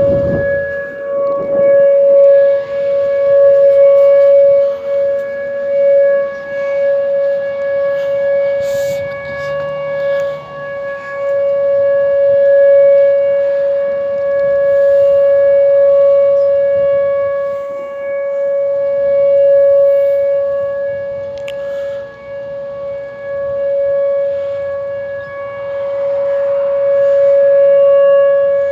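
Whelen WPS 2906 electronic outdoor warning siren sounding a steady, single-pitch alert tone during a monthly test. Its loudness swells and fades every few seconds as the rotating speaker head turns.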